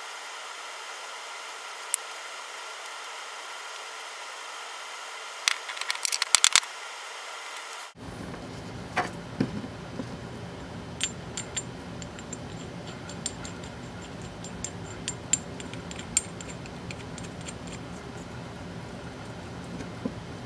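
Light metallic clicks and clinks of a bolt being handled and turned by hand in the freshly tapped holes of a machined aluminum adapter, with a quick run of clinks about six seconds in and scattered single ticks later, over a steady workshop hum.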